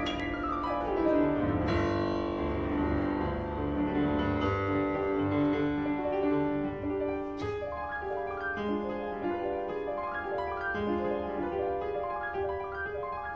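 Background music: a piano-led piece playing a run of notes.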